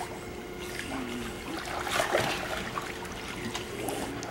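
Pool water sloshing and splashing as a child swims through it, a little louder about two seconds in, over a faint steady hum.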